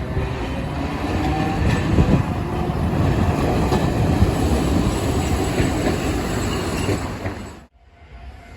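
A train running past close by, with rumbling wheel and rail noise and a faint wheel squeal. The sound cuts off suddenly near the end and comes back much quieter.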